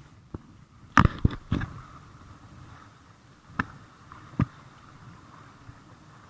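Sharp knocks and thumps: three close together about a second in, then two more spaced apart a few seconds later, over a faint steady hiss.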